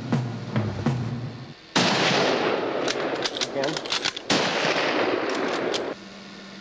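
Two rifle shots from a scoped hunting rifle, about two and a half seconds apart, each a sudden loud crack followed by a long rolling echo, with a few sharp clicks between them; the sound cuts off abruptly near the end.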